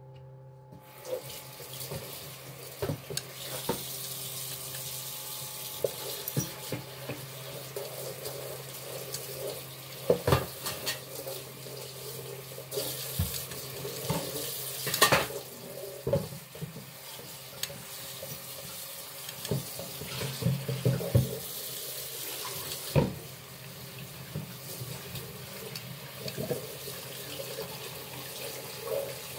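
Kitchen tap turned on about a second in and running into a stainless steel sink as raw chicken is washed by hand in a bowl, with scattered knocks and clatter of handling in the sink.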